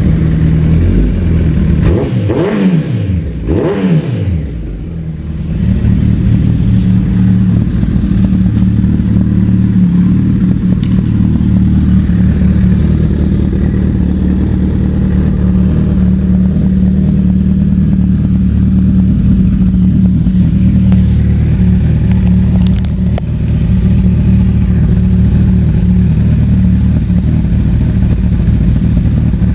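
2013 Kawasaki ZX-14R's 1441 cc inline-four running through a Brock's full street exhaust. It is revved twice early, about two and three seconds in, then idles steadily.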